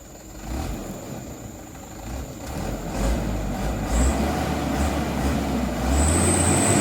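Mitsubishi Canter HD truck's diesel engine running at full throttle, pulling a heavy load through mud, its rumble growing steadily louder. A high steady whine joins in near the end.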